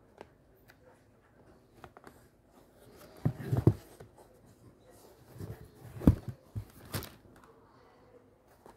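Handling noise as a canvas skate shoe is lifted and turned in a cardboard box with tissue paper: scattered rustles and knocks, with a loud cluster of bumps about three and a half seconds in and sharp knocks around six and seven seconds.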